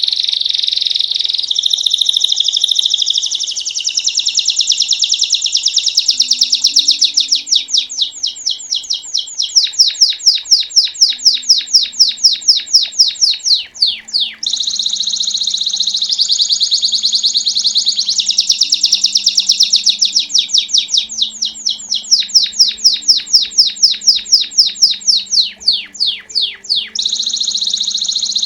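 Belgian canary singing a long, loud, unbroken song of rapid repeated notes and trills, the bell-like 'campainha' style, changing pace through the song with brief breaks about halfway and near the end. Faint steady low tones lie beneath it.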